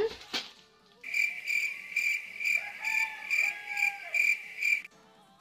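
Cricket chirping: a steady, even chirp repeating about two to three times a second, starting abruptly about a second in and cutting off near the end.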